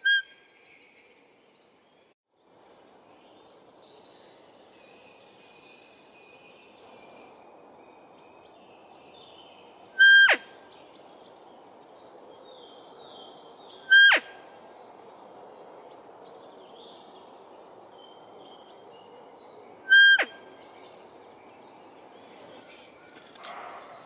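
Buttolo Blatter deer caller, a squeeze-bulb roe deer call, sounded four times: each a short, loud, high-pitched squeak, several seconds apart. Birds sing in the background.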